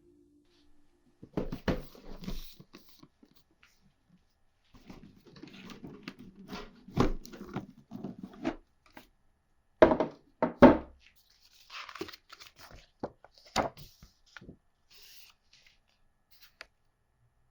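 A board game's packaging being torn open and handled: rustling, tearing and scattered knocks of cardboard and wrapping, with the loudest knocks about ten seconds in.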